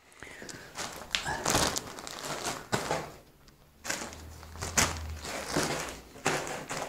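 Plastic tube bags packed with straw-pellet substrate and oyster mushroom mycelium handled and laid into a wooden frame: irregular crinkling and rustling of the plastic, with a few knocks.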